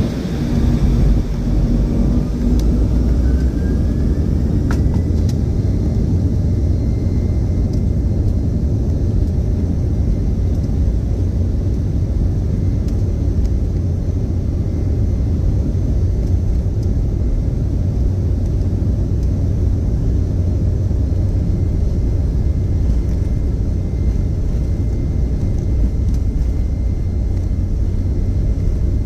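Airplane cabin noise during takeoff: a steady, deep rumble of engines and rushing air, with a faint whine that rises in pitch over the first few seconds and then holds steady.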